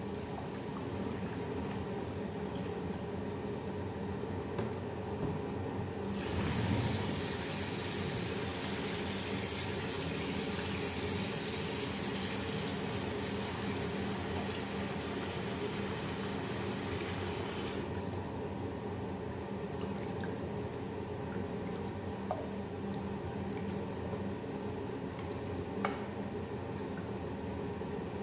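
Kitchen faucet running into a stainless steel pot of blanched chicken pieces in the sink as they are rinsed, turned on about six seconds in and shut off abruptly about two-thirds through. Before and after it, quieter water noise as the blanching water is poured off and the pieces are handled in the water, with a couple of light knocks near the end.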